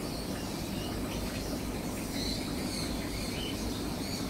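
Steady hum of aquarium air pumps and filters, with faint short high chirps several times.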